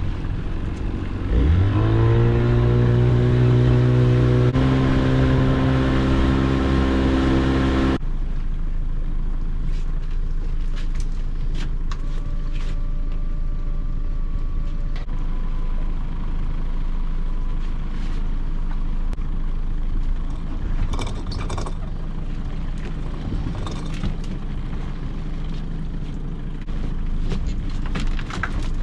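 A small fishing boat's engine throttling up about a second and a half in and running hard. About eight seconds in it changes abruptly to steady running at lower revs, with scattered knocks and clatters.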